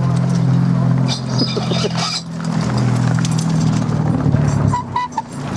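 A Mini race car's engine running steadily at low revs as the car rolls slowly past on gravel, tyres crunching over the stones; its note drops away near the end. The car is coming off the circuit, out of the race, and a spectator thinks it is kaput.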